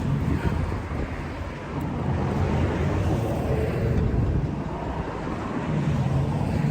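Wind buffeting the microphone: a steady low rumbling noise with no distinct knocks or clicks.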